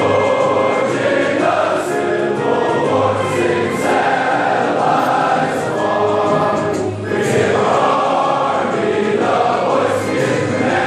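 Many voices singing together to music, in a hall.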